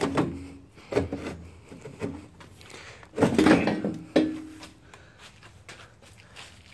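Metal exhaust tube centrepiece of a snowmobile being worked free of the chassis: a run of knocks, clunks and scrapes of the pipe against the frame, the loudest about three to four seconds in.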